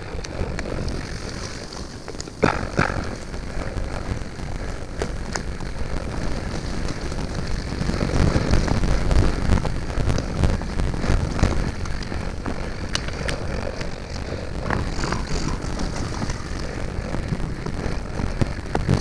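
Mountain bike riding over a rocky forest trail, heard through a GoPro Hero5 Black's microphone as a steady low rumble with scattered knocks and rattles. It swells about halfway through. The rumble is what the rider reports as an audio problem with the new camera.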